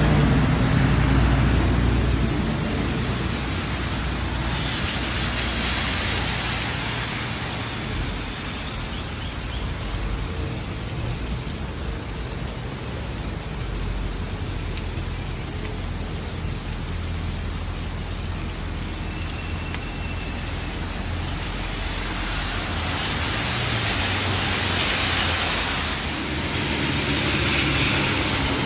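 Steady rain with passing road traffic. A vehicle's engine fades away at the start, and the rushing hiss of another vehicle swells and fades near the end.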